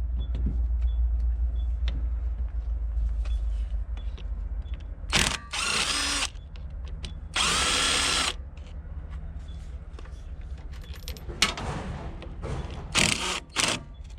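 Power drill run in short trigger pulls, its motor whine rising and falling: two pulls of about a second each near the middle, then a few shorter ones near the end, over a steady low hum.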